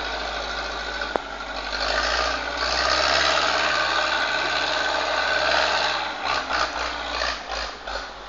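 Zetor 7245 tractor's four-cylinder diesel engine working under load while skidding timber. It swells about two seconds in and holds steady, then drops away near the end, where a run of sharp cracks comes in.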